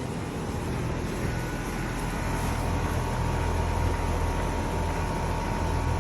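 Outdoor central air-conditioning condenser unit running with a steady low hum; a faint steady high tone joins about two seconds in.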